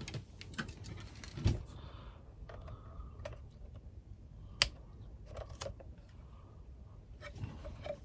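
Scattered clicks, taps and scrapes of a small screwdriver picking at the foam feet on the plastic case of an HDD docking station, with the case being handled. A dull knock about a second and a half in and a sharp click a little past the middle are the loudest.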